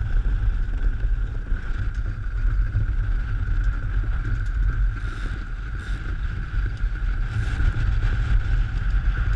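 Wind rumbling on the microphone, with a steady high-pitched hum throughout and a few brief hisses about halfway through.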